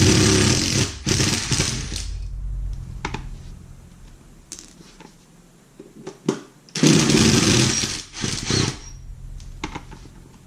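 Handheld power tool run in short bursts: one spell at the start and another about seven seconds in, with a few light knocks of metal parts in between.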